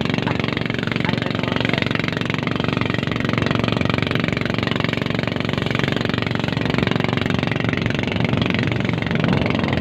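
Motorboat engine running steadily, under an even rush of noise.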